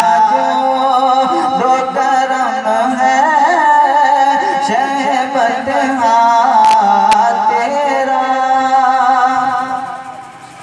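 A man sings a devotional Urdu naat into a microphone, drawing out long, wavering held notes with no clear words. The singing drops away near the end.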